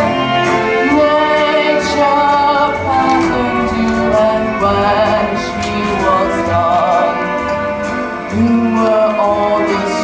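A slow song from a stage musical: a voice singing held, wavering notes over instrumental accompaniment.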